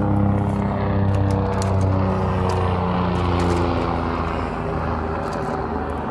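A motor vehicle's engine running close by, its pitch falling slowly and its sound fading gradually as it slows or moves away.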